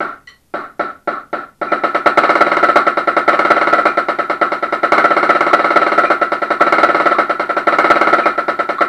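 Pearl marching snare drum struck with sticks: a few separate strokes, then from about a second and a half in a fast, continuous roll, with a steady high ring from the tight head.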